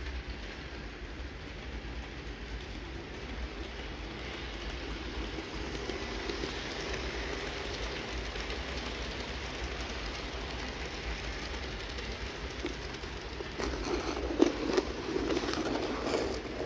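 Model train rolling past on sectional track: a steady rolling hum of the motor and wheels builds as the cars come close, and near the end the wheels clatter with quick sharp clicks over the rail joints as the last cars go by.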